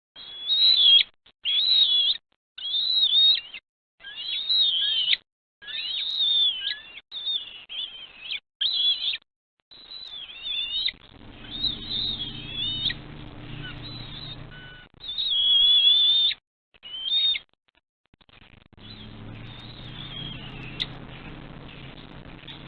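Bald eagles calling at the nest: high-pitched, wavering calls in about a dozen short bouts with brief gaps. From about eleven seconds in, a low steady hum runs under the calls, stops for a couple of seconds and comes back near the end.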